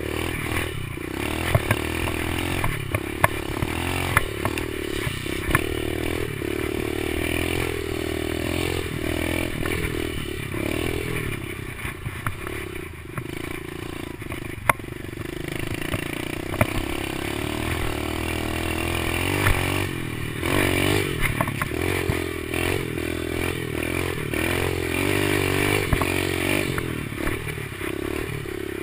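Kawasaki KLX110 pit bike's small single-cylinder four-stroke engine running under way, its pitch rising and falling as the throttle is worked. Scattered sharp knocks come through as the bike rides over rough ground.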